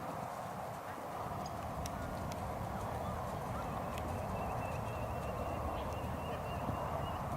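A horse's hoofbeats on the arena footing over steady outdoor background noise. A faint, thin, high steady tone sounds for about three seconds in the second half.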